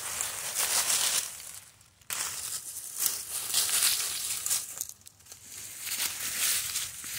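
Dry fallen leaves crunching and rustling as a beagle noses and roots through them, in uneven bursts that stop briefly twice, about two seconds in and again near the middle.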